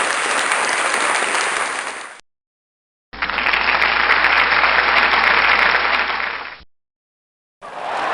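Crowd applauding in three separate takes: the first fades out about two seconds in, a second with a duller sound and a low hum under it starts after a short silence and fades out after about three and a half seconds, and a third begins near the end.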